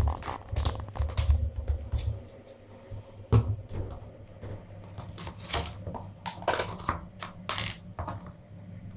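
Thin clear plastic deli tubs and lids being handled: irregular clicks, crackles and crinkles of plastic, with low bumps of handling in the first two seconds.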